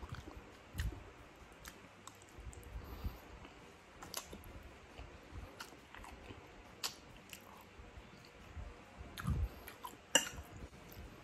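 A person chewing a mouthful of spaghetti in sauce up close, with quiet wet mouth clicks and a metal fork now and then tapping and twirling against the plate. The sharp clicks come scattered a second or more apart, the strongest about ten seconds in.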